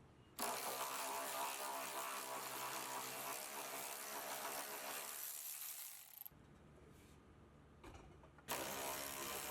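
A cordless power tool's motor runs at a steady pitch for about six seconds as it works the exhaust hanger bolts. It stops, then runs again about two seconds later.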